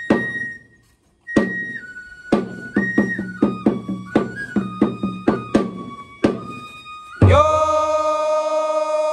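Japanese lion-dance (shishimai) music: a bamboo flute plays a melody that steps from note to note over sharp drum strikes, with a short break about half a second in. About seven seconds in, a louder held tone with many overtones takes over.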